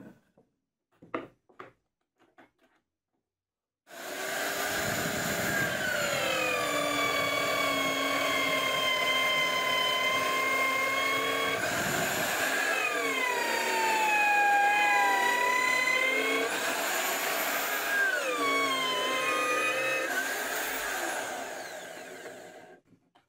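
A router mounted in a homemade drill press stand runs at full speed, boring holes in a wooden board; its pitch sags about three times as the bit bites into the wood, then recovers. It starts about four seconds in after a few light knocks and winds down near the end.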